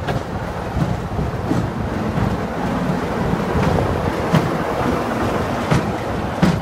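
Class 33 diesel locomotive's Sulzer eight-cylinder engine running steadily as the locomotive draws past close by, with a few sharp clicks along the way.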